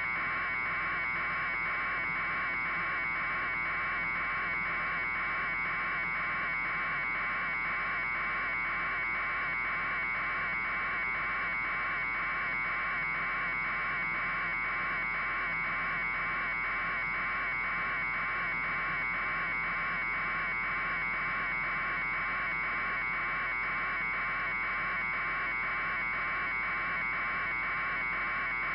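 A steady buzz with a fast, even pulse, unchanging throughout.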